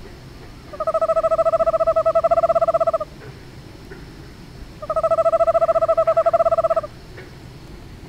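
Eastern screech-owl giving its tremolo twice: an even-pitched, rapidly pulsed trill of about two seconds each time. This purring trill is the contact call of mated pairs.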